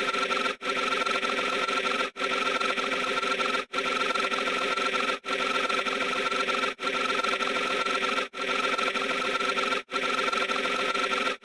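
A short, steady droning sound effect looped over and over, about once every one and a half seconds, with a brief cut to silence between loops.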